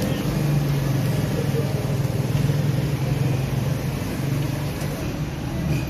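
Hot oil in a steel wok sizzling and bubbling over a steady low hum.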